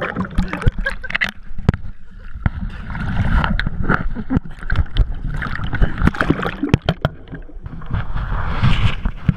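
Sea water splashing, sloshing and gurgling around a camera housing mounted at the waterline of a kayak as it dips in and out of the water, muffled whenever it goes under. Many sharp knocks and splashes sit over a rumbling wash.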